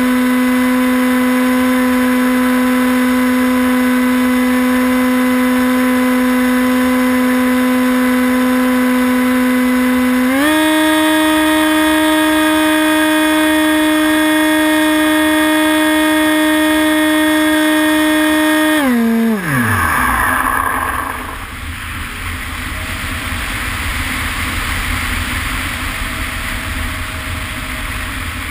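Electric motor and propeller of an RC plane, heard from on board: a steady high hum that steps up in pitch about ten seconds in, then winds down to a stop a little before the last third. After that, wind rushes past as the plane glides with the motor off.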